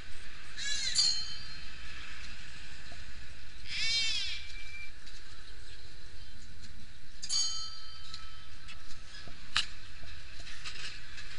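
Large Buddhist prayer wheel being turned by hand. It gives a creaking squeak three times, about every three and a half seconds, and each squeak is followed by a short metallic ring. A single sharp click comes near the end.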